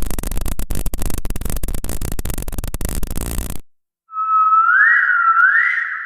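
Horror sound effects: a dense crackling static that cuts off suddenly about three and a half seconds in. Half a second later comes an eerie whistle-like tone that swoops up in pitch twice and then fades out.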